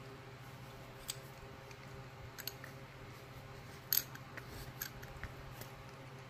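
Faint, scattered metallic clicks and ticks of small hand tools being handled, the sharpest about four seconds in, over a steady low hum.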